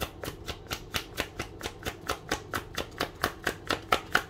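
Tarot cards being shuffled by hand: a steady run of quick card slaps, about four to five a second.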